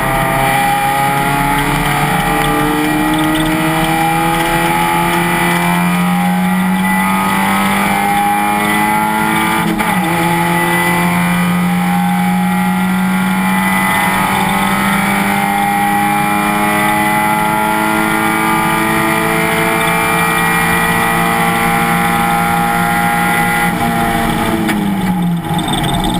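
Race car engine at full throttle, its pitch climbing steadily through a gear, with a quick upshift about ten seconds in. It then pulls long and steadily again in the next gear before the revs fall away quickly near the end as the driver lifts off.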